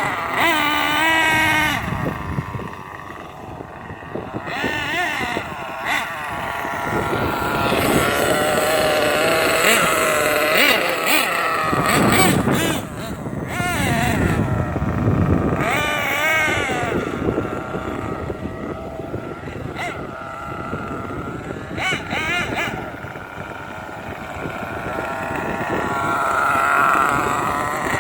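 Losi 8IGHT-T radio-controlled truggy being driven, its motor's whine rising and falling in pitch again and again as it speeds up and slows down, with wind buffeting the microphone.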